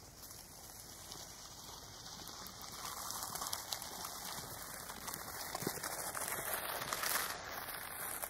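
Streetcar running noise heard from inside the car: a steady hiss of wheels rolling on rails that grows louder over the first few seconds as the car picks up speed.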